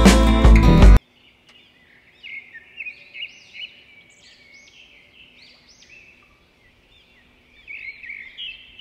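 Music cuts off sharply about a second in, and then birds chirp: a quick run of short, high chirps and twittering notes, much quieter than the music, busiest at first and again near the end.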